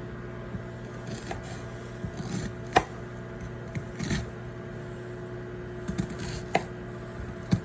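Kitchen knife cutting an onion on a cutting board: a few separate, irregularly spaced knocks of the blade meeting the board, over a steady low hum.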